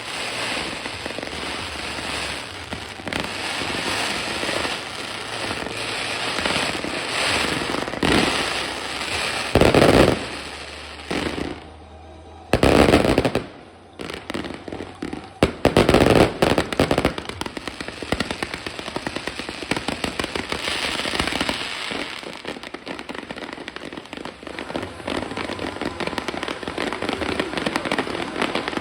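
Fireworks going off in a dense, continuous crackle, with loud bangs about ten, thirteen and sixteen seconds in.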